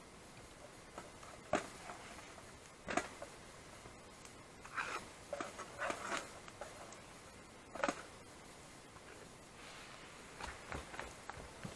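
Spatula scraping and knocking against a frying pan as slices of fried bread are lifted out onto a plastic bowl: a few scattered clicks and scrapes, with a small cluster of them about halfway through.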